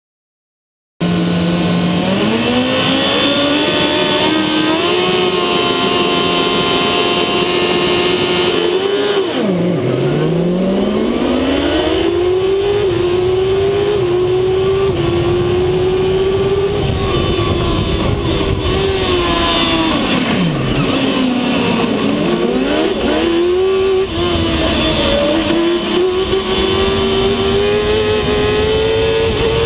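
Onboard sound of a Shortcar racing car's motorcycle engine at high revs, starting about a second in. Its pitch climbs in steps with quick drops at the gearshifts, and twice falls steeply as the car slows for a corner, then climbs again.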